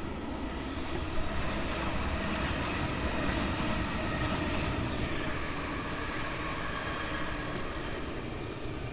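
Electric passenger train running past on the tracks: a steady rumble and rail noise that swells about a second in and eases off toward the end, with faint whining tones over it.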